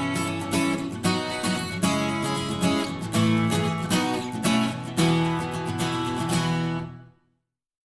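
Background music of strummed acoustic guitar, fading out about seven seconds in and dropping to silence.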